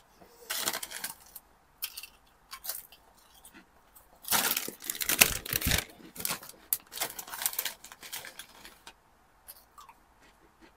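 Walkers Max crisp packets crinkling and rustling as they are handled and swapped over, in irregular bursts, loudest about halfway through.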